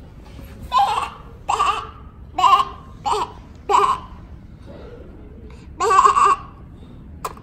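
A young girl's voice making short non-word vocal sounds: five quick ones in a row, then a longer one about six seconds in.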